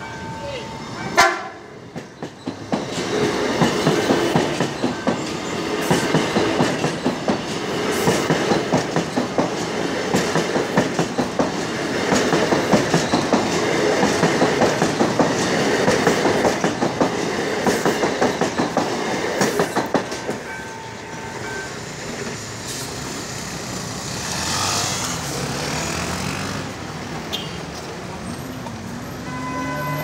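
CSR/Mitsubishi electric multiple unit gives a short horn blast about a second in, then passes close by with a rhythmic clickety-clack of its wheels over the rail joints and crossing. The last car clears about two-thirds of the way through, leaving lower street-traffic noise.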